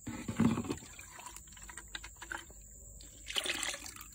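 Liquid herbicide poured from a plastic bottle into a sprayer tank of water, splashing and gurgling in two bursts, one at the start and one a little after three seconds, with light taps and clicks between.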